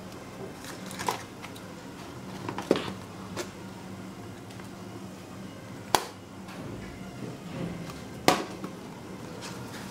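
Handling noise from a white plastic Samsung phone-battery charger and its cardboard box: a few sharp plastic clicks and knocks, the loudest about six and eight seconds in, over a steady low hum.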